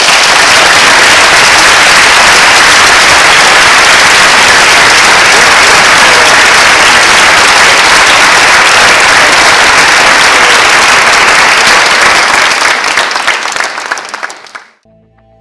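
Audience applauding loudly, a dense, even clapping that thins out over the last few seconds before stopping.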